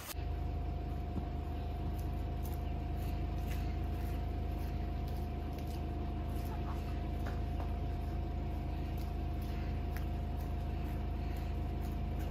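An engine idling steadily: an even low drone with a faint steady whine above it.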